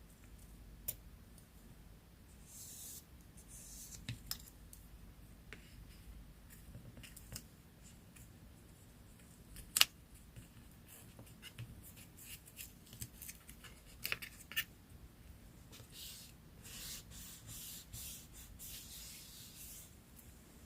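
Scissors snipping paper, with paper rustling and a scatter of sharp clicks, the loudest about ten seconds in.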